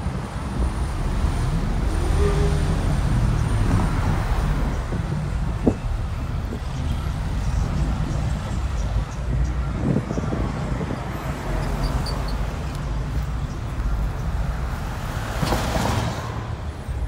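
Street traffic with a steady low rumble, and a pickup truck passing close by near the end.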